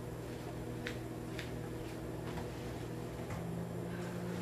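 Steady low electrical hum of a kitchen appliance, with three faint light clicks.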